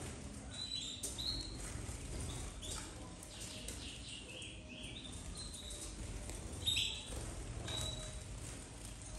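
Domestic canaries giving short, high chirping call notes every second or so, with wings fluttering as birds fly between perches and one louder flurry about two-thirds of the way through.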